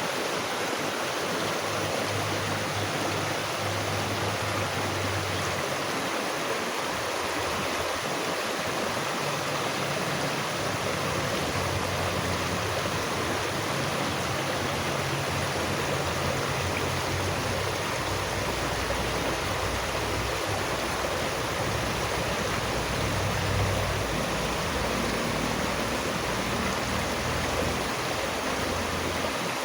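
Water flowing in a stream: a steady, even rush with a low rumble underneath that shifts in pitch.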